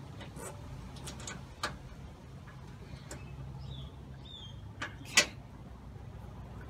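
Scattered clicks and knocks of a car radiator and its mounting grommets being shifted and seated into place by hand, with one sharper knock about five seconds in, over a steady low hum.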